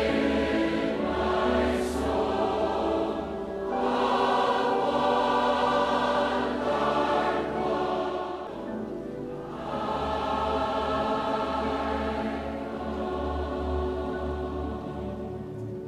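A choir singing a hymn in long held notes, with brief breaks between phrases about a third of the way in and again just past the middle.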